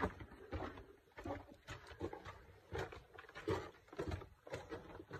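Footsteps crunching and shuffling over loose dry earth, with irregular scrapes and knocks.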